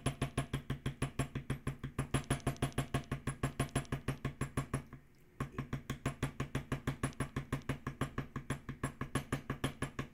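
A white mallet tapping a small steel beveler into damp, cased leather on a marble slab, beveling along a tooled leaf stem. Quick, even taps about six a second, with a half-second pause about five seconds in.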